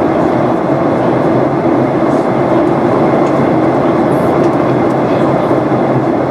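Steady cabin noise inside a Boeing 737-800 in flight: the even, unbroken hum of its CFM56 turbofan engines and the air rushing past the fuselage.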